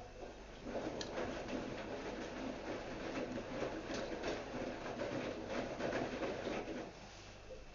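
Whirlpool washing machine running: a louder churning stretch with scattered clicks starts just under a second in and stops about a second before the end, over a steady low hum.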